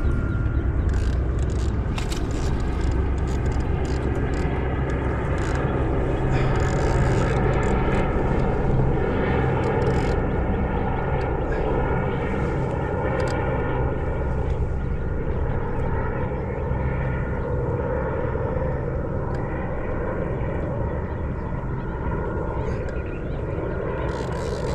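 A steady motor drone with several held tones that drift slowly in pitch, with scattered light clicks in the first half.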